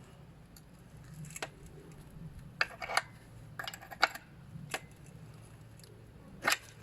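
Irregular metallic clicks and taps of a spanner on the chain adjusting nut of a motorcycle swing arm as the nut is tightened, about seven in all, the loudest near the end, over a faint steady low hum.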